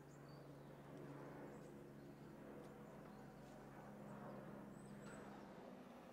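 Near silence: a faint steady low hum, with a few faint light ticks and a couple of brief high chirps.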